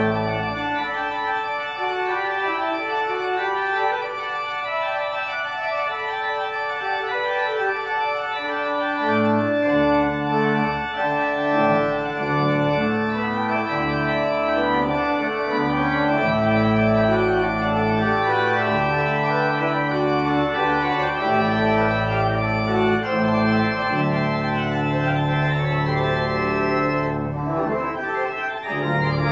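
Church organ played with full sustained chords, and deep pedal bass notes joining about nine seconds in.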